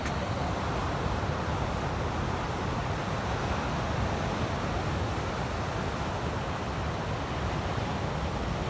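Steady rush of ocean surf, mixed with wind on the microphone.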